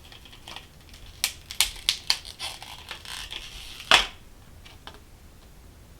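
Plastic packaging of a RAM stick being opened by hand: a run of clicks and crackles, with a louder snap about four seconds in.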